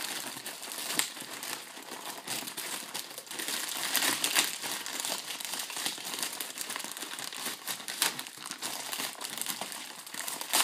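Grey plastic mailer bag crinkling and crackling as it is handled and torn open by hand, with a few louder crackles along the way.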